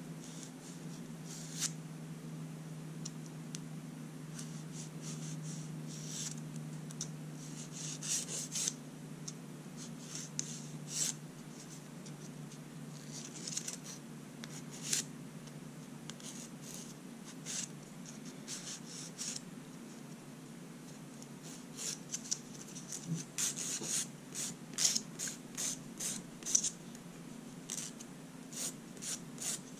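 Short, irregular scratching and rubbing strokes of manicure work on long natural fingernails, coming thicker and faster near the end, over a steady low hum.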